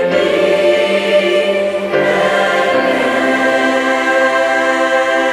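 A choir of young voices singing long, held chords, the harmony changing about two seconds in and again shortly after.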